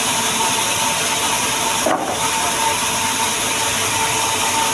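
Woodworking machinery processing sengon wood runs with a loud, steady hiss and a constant whine, dipping briefly about two seconds in.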